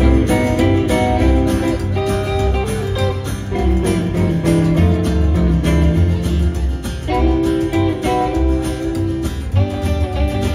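Live band playing an instrumental break with no singing: hollow-body electric guitar, strummed acoustic guitar and upright bass, in a country-rockabilly style.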